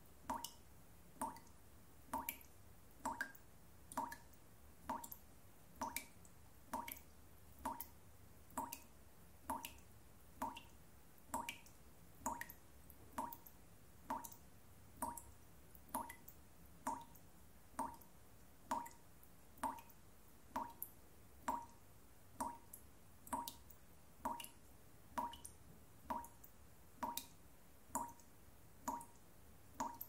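Dripping tap: single water drops falling at an even pace, a little more than one a second, each a short pitched plip.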